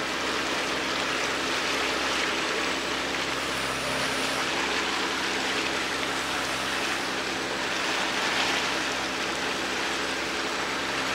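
Boat engine running steadily with a low hum, under a constant rush of water from the boat's wake and spray.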